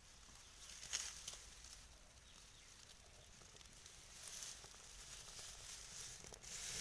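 Dry straw rustling as it is handled and pushed into a mud stove, then catching fire: a crackling, hissing straw fire that grows louder over the last few seconds.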